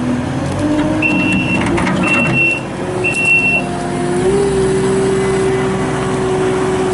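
Kubota SSV65 skid steer's turbo diesel engine revving up and holding at high rpm, with three short beeps from its backup alarm in the first few seconds and a few light clanks.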